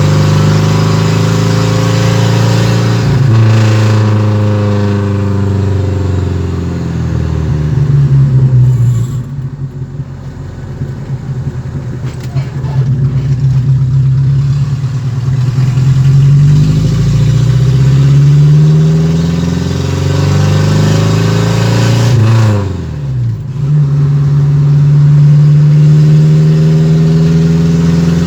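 Ford Maverick's 2.3 OHC four-cylinder engine running with a loud rumble, its revs rising and falling several times. It dips briefly about three-quarters of the way through, then holds steady.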